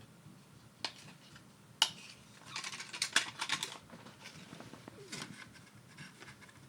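Small clicks and rustling as a boxed Zippo lighter is handled and worked open, with a sharp click about two seconds in and a busier run of clicks and rustle a little after.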